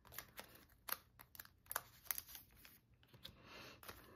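Faint handling of a clear plastic card sleeve and a cardboard album insert: scattered light clicks and taps, with a soft plastic crinkle about three seconds in.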